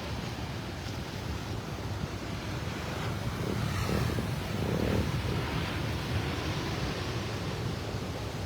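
Heavy surf from a rough sea with wind buffeting the microphone, swelling louder around the middle as a wave comes in.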